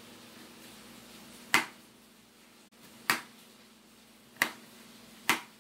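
Kitchen knife cutting a cucumber on a plastic cutting board: four sharp knocks of the blade striking the board, unevenly spaced.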